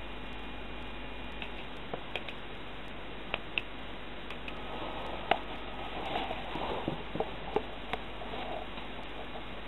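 Handling noise from a handheld camera: scattered light clicks and taps over a steady hiss, with muffled rustling in the second half as the camera is moved about.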